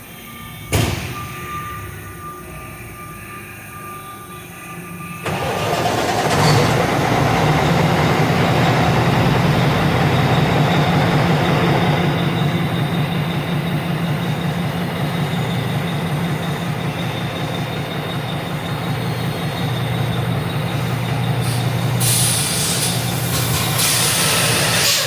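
A sharp click, then about five seconds in a heavy engine comes in suddenly and runs on steadily and loudly with a low hum.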